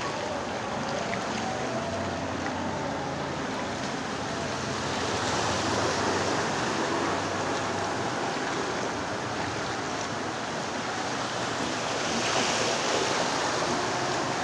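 Floodwater in a street sloshing and washing steadily, growing louder about five seconds in and again about twelve seconds in.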